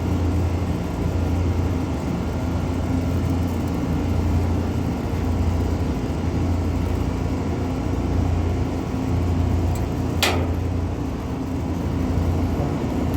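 Steady, loud low machine hum, with one sharp knock about ten seconds in.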